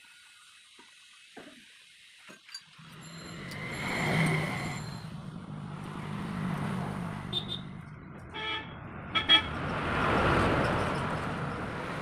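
Motor vehicles passing by, one swelling up about four seconds in and another near ten seconds, with a few sharp metal clinks of hand tools in between.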